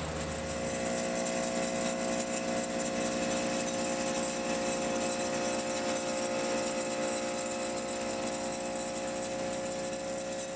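Resonant vibratory pile driver running steadily: a constant high-frequency machine hum made of many stacked tones, with no change in pitch.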